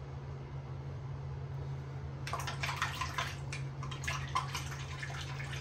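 Billie razor scraping through long, lathered armpit hair: a run of quick scratchy strokes starting about two seconds in, over a steady low hum.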